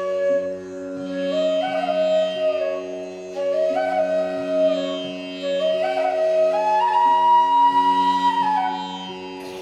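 Background instrumental music: a flute melody with notes that slide from one to the next, over a steady held drone.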